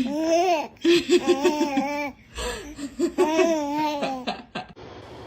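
A baby laughing in two bouts of quick, pulsing giggles; the laughter stops about four and a half seconds in.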